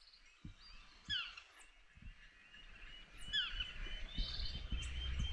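Distant black-mandibled (yellow-throated) toucan calling: a few descending yelping notes, with smaller birds chirping around it. A low rumble builds in the second half.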